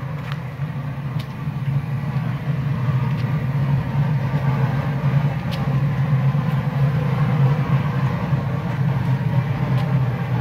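Steam sterilizer rig running: a steady low roar with hiss while steam vents from the vessels' valves, with a few faint clicks.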